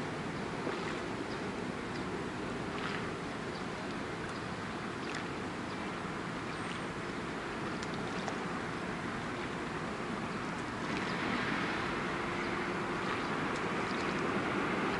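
Steady wash of wind and lapping sea water, with a few faint ticks, growing a little louder about eleven seconds in.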